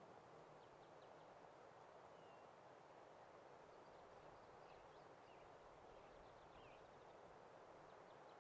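Near silence: a faint, steady hiss with scattered short bird chirps, sparse and distant-sounding, most of them in the middle of the stretch.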